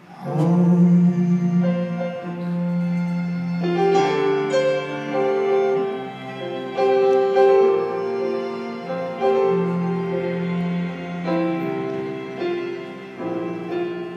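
Instrumental passage of a slow ballad played live: piano or keyboard chords with bowed strings, each chord held and changing every second or two, with no singing. A loud chord is struck just after the start.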